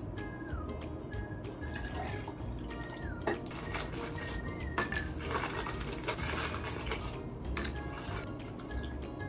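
Background music with a short falling melody and bass notes repeating, over handling sounds: glass clinks as coffee is poured into a glass, then a plastic bag crinkling, loudest around the middle.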